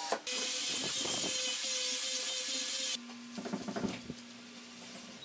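Cordless drill driving a screw into a wooden lid, running steadily for about three seconds and stopping abruptly. A few light wooden knocks and rubs follow as the wood is handled.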